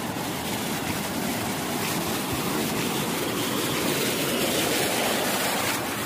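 Water in a channel beside a jungle path rushing steadily over a small weir: an even, unbroken rush.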